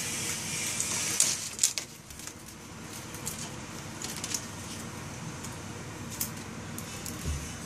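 A cat batting and clawing at a measuring tape against a cupboard door: two sharp knocks a little over a second in, then scattered faint taps and scrapes.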